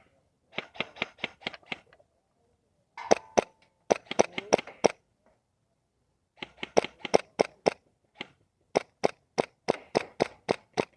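Airsoft guns firing in short rapid strings of sharp cracks, about five a second, in four volleys with brief pauses between them.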